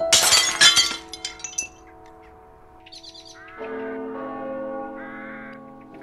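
A loud clatter with a ringing tail in the first second. About three and a half seconds in, a tower clock's bell starts to toll, its tones holding and slowly fading, with faint birdsong.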